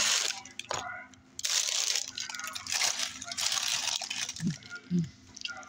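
Rustling and crinkling noise close to the microphone, typical of food packaging or handling while eating: a short burst, then a longer stretch of about three seconds. Near the end come two short low hums.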